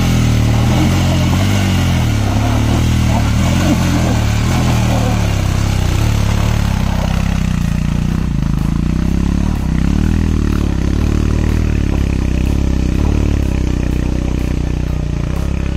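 Motorcycle engine running under way, the revs rising and falling with the throttle, easing off about halfway and picking up again, over wind and tyre noise.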